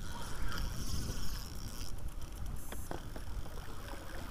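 Wind buffeting the microphone over water sloshing against a small boat, with a couple of sharp clicks a little under three seconds in.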